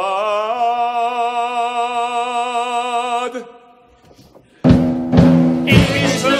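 Voices hold a long sung note with vibrato, which ends about three seconds in. After a second's hush, the orchestra comes back in with three heavy drum strikes, and the music with singing carries on.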